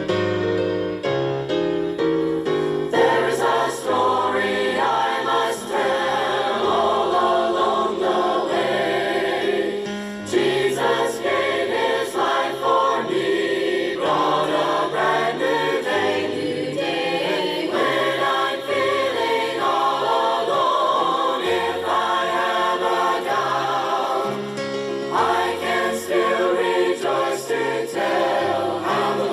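A choir singing a gospel song with piano accompaniment; the piano plays alone for the first few seconds before the voices come in.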